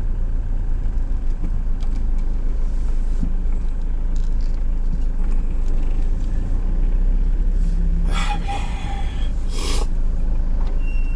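Iveco Daily truck driving through town, heard from inside the cab: a steady low engine and road rumble, with a brief louder hissing noise about eight seconds in.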